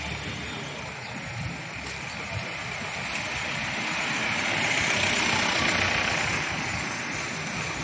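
Street traffic noise: a passing motor vehicle's engine and tyres swell to their loudest about five seconds in, then ease off.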